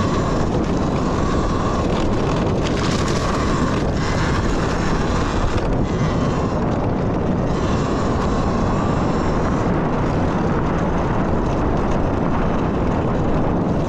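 Steady wind rush and rolling noise from riding a Talaria Sting electric dirt bike, with a faint electric motor whine that wavers in pitch and fades in and out.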